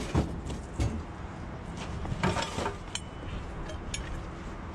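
Junk being handled and shifted about in a dumpster: a few knocks near the start, a scraping rustle about two seconds in, then scattered clicks.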